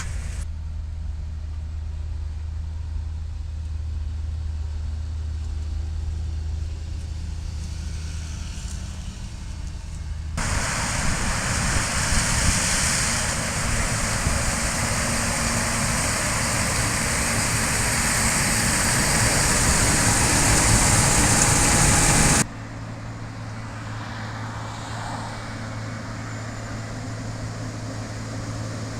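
Corn harvesting machinery running: a steady low engine drone, then from about ten seconds in a much louder, hissing mechanical racket. About twenty-two seconds in it cuts abruptly back to a low steady engine hum.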